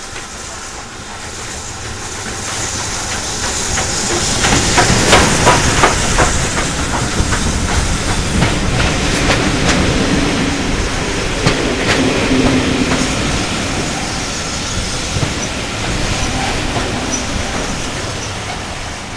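A steam train passing close by on the next track: the locomotive draws near and goes past with a hiss, loudest about five seconds in. Its coaches then roll slowly alongside, the wheels clicking over the rail joints.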